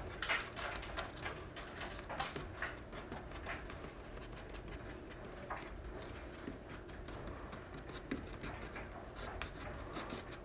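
Soft rustling and light clicks of small strips of gaffer tape being handled and pressed down onto foam board, a quick irregular string of little sounds.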